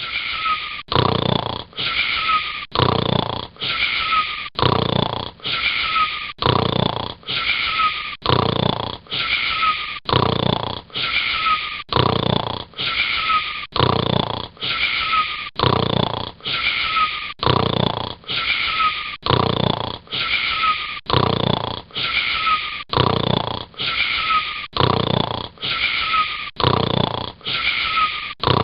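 Snoring: one short snore about once a second, in a very even rhythm.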